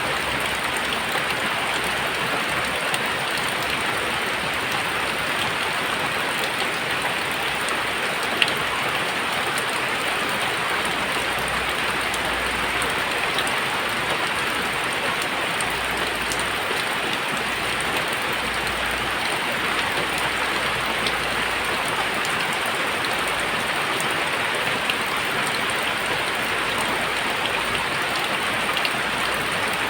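Very heavy rain pouring down, a steady dense hiss of rain on surfaces with the odd louder drop striking nearby, one sharper tick about eight seconds in.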